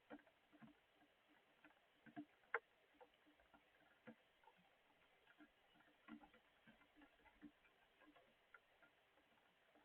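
Faint, scattered raindrops dripping and tapping in irregular ticks, a few each second, with one sharper tap about two and a half seconds in.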